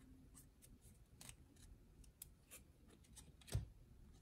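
Faint scrapes and flicks of 1995 Fleer Metal football trading cards being slid through by hand, one card moved behind the others, with a soft low thump about three and a half seconds in.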